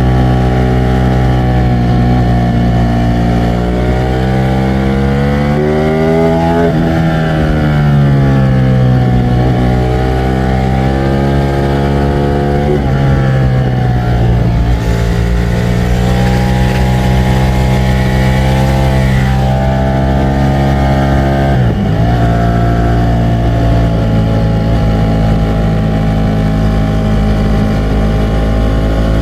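2025 Ducati Streetfighter V4 S's 1,103 cc V4 engine running at fairly steady revs. Its note climbs for a few seconds and falls back about seven seconds in, with shorter dips near the middle and about three-quarters of the way through.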